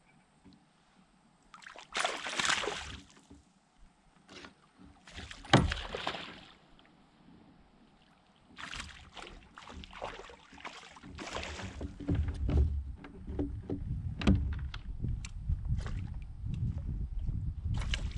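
Water splashing and sloshing around a kayak in irregular bursts, with scattered sharp clicks and knocks. A steadier low rumble sets in about two-thirds of the way through.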